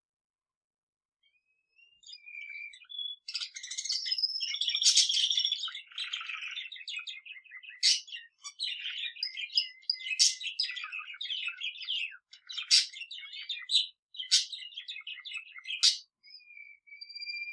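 A budgerigar and a male canary singing together: a dense run of chirps, warbling and sharp high notes that starts about two seconds in after a brief silence.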